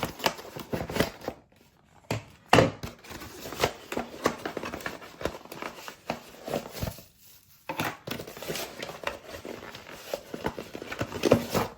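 Product packaging being opened and handled by hand: crinkling and tearing of packaging, with scattered clicks and knocks. The loudest is a sharp knock about two and a half seconds in.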